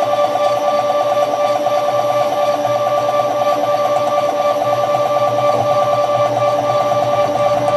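Bipolar two-phase stepper motors of a small CNC machine running at a steady speed, giving a steady, even whine made of a few fixed tones.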